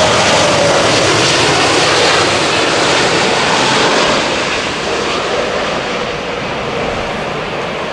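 Jet engines of a British Airways Boeing 777 on final approach: a broad, loud roar with a faint whine dropping in pitch in the first second. The roar fades gradually after about four seconds as the aircraft moves away towards touchdown.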